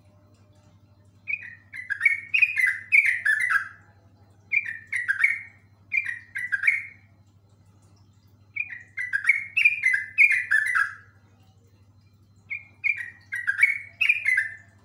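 Yellow-vented bulbul (trucuk) singing its rolling song in five runs of rapid notes, each lasting one to a few seconds, with short pauses between.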